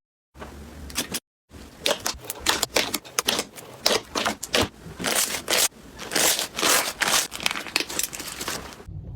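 Slime being squished and pressed, giving a dense run of sharp crackling, crunching pops.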